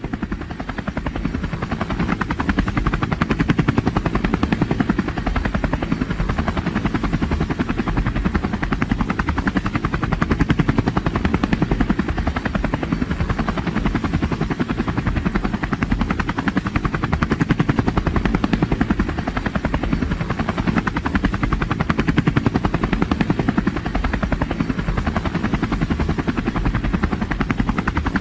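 Helicopter rotor blades chopping rapidly and evenly over a low steady drone, swelling over the first couple of seconds and then holding steady.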